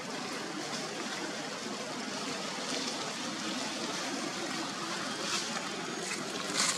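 Steady rushing outdoor background noise, with a few short crackles near the end.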